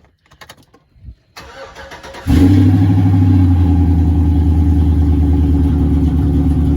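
Pickup truck cold start through 8-inch exhaust tips: faint clicks, then about a second of starter cranking, and the engine catches a little over two seconds in and settles into a loud, steady idle.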